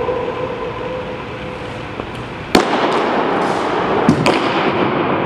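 A baseball smacks loudly into a catcher's mitt about two and a half seconds in, ringing in a hard-walled gym, with a couple of sharper knocks a second and a half later as the catcher comes up to throw. Before the catch a steady hum is heard.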